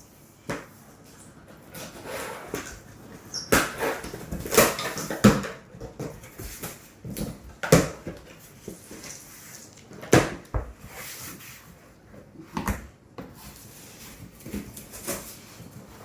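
Mixer grinder packaging and parts being handled during unboxing: irregular knocks, thumps and rustling of cardboard and wrapping.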